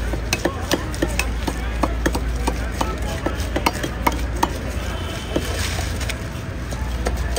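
Fish being cut against an upright bonti blade: a quick run of short scraping clicks, about two or three a second, thinning out after about four seconds, with a brief hiss about five and a half seconds in.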